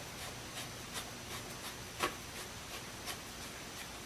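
Faint scattered clicks and light rubbing from a bolt being put in and turned by hand to fasten a lap steel attachment to a guitar, the clearest click about two seconds in.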